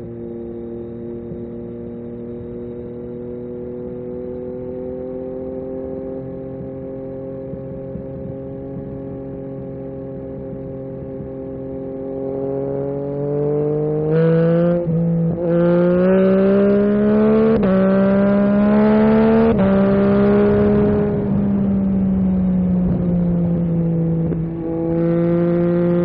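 Yamaha MT-09 SP's inline three-cylinder engine through an Akrapovic carbon racing exhaust, first cruising at light throttle with the pitch creeping up. About halfway through it opens up hard, its pitch climbing and dropping back several times in quick succession as it shifts up through the gears. It then holds a steady speed, with a brief lift of the throttle near the end.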